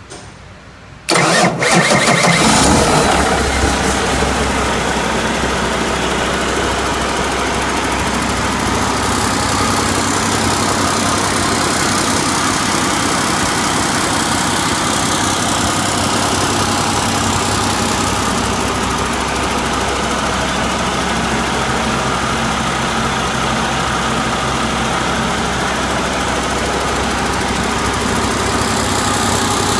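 2015 Cummins ISX15 inline-six diesel engine starting about a second in, running loud for a couple of seconds, then settling into a steady idle.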